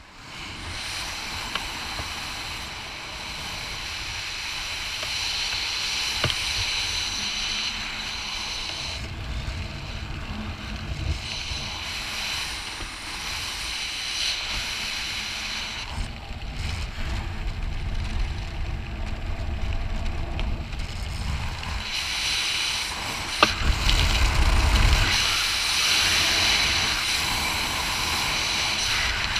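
Wind rushing and buffeting over a camera microphone during a parachute descent under an open canopy. It rises and falls in strength, with the heaviest low buffeting in the last few seconds.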